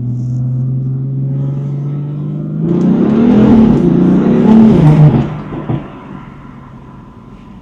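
BMW M4's twin-turbo inline-six running steadily, then opening up under acceleration about three seconds in with a louder, rougher exhaust note for some two seconds, before easing back to a quieter cruise.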